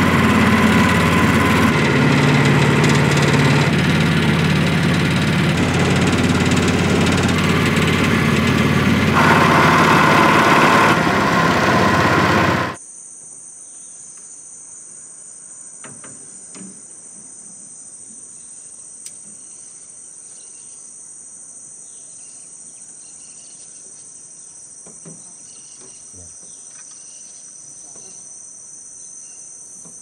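Small 6.5 hp long-tail boat engine running steadily under way, giving way abruptly about 13 seconds in to a steady, high-pitched shrill of insects with a few faint clicks.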